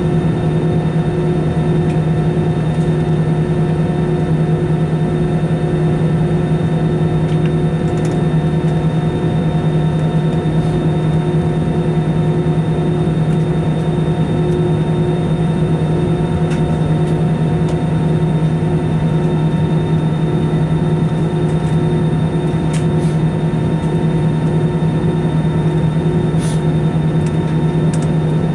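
Steady cabin drone of an Airbus A320 on the ground before takeoff: engines idling and cabin air running, a loud, even hum with a low steady tone and a few faint ticks.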